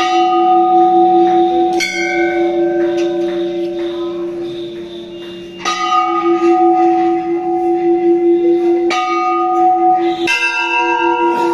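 Hanging brass temple bells struck about five times, each strike ringing on in long, overlapping tones. The last strike brings in a differently pitched bell.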